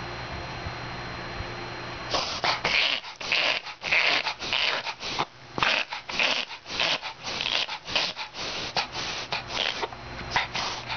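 A mixed-breed dog in a reverse-sneezing fit: a fast run of forceful, noisy intakes of breath through the nose, about two or three a second. It starts about two seconds in and breaks off briefly near the end before a couple more.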